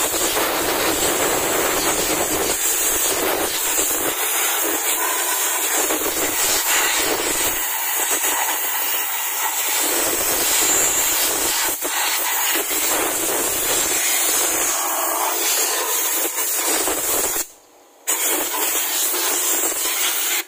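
Compressed air hissing hard from an air-compressor blow gun as it blasts dust out of the ATV's open CVT clutch housing, pulleys and drive belt. A steady loud hiss that stops for about half a second near the end, then starts again.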